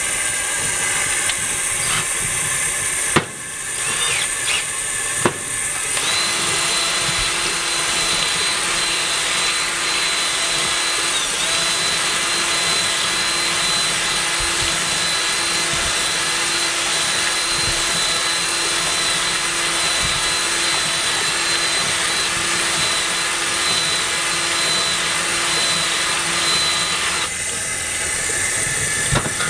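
Ryobi cordless drill spinning a ball-type glaze-breaker hone inside the main bore of a tandem brake master cylinder, with tap water running into the bore. After a couple of knocks, the drill starts about six seconds in and runs at a steady whine until shortly before the end.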